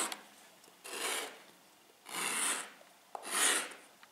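A lump of dried white wall putty scraping across a bare concrete floor as it is drawn with like chalk: three separate scraping strokes about a second apart.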